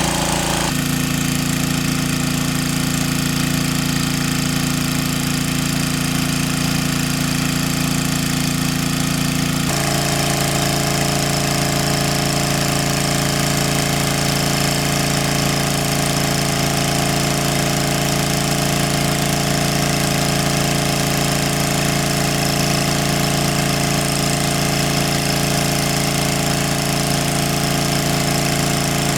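A small engine running steadily with a knocking, chugging note. Its tone changes abruptly twice, about a second in and about ten seconds in.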